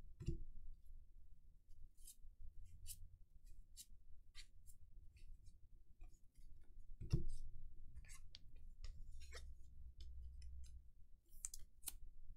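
A stack of 1983 Fleer baseball cards being thumbed through and shuffled by hand: a string of light papery clicks and slides of card on card. Two soft thumps, one just after the start and a louder one about seven seconds in.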